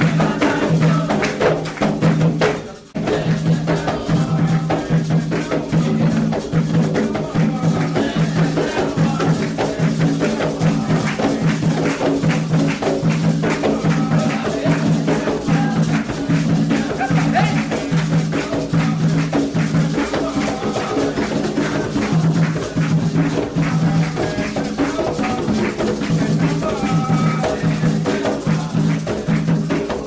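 Candomblé ritual drumming: atabaque hand drums beating a fast, steady rhythm with shaken rattle percussion over it, for the orixá's dance. The sound drops out briefly about three seconds in.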